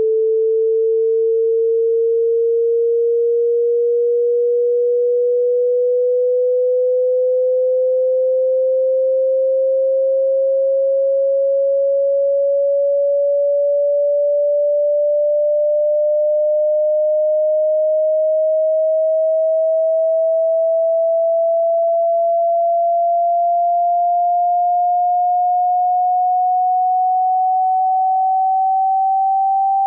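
Pure sine test tone from a hearing-test frequency sweep, gliding slowly and evenly upward in pitch, a little under an octave in about thirty seconds, at a constant loudness.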